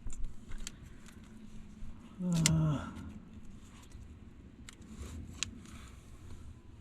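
Scattered light clicks and rustles of plastic wiring-harness connectors and wires being handled under a truck dashboard, with a short hummed voice sound about two and a half seconds in.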